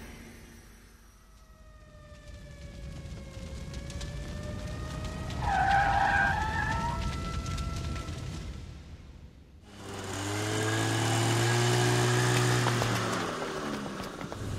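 Cartoon sound effects of a heavy truck skidding to a stop on a wet road, its tyres squealing in long falling and rising tones that fade out. After a brief hush, an engine runs steadily for a few seconds.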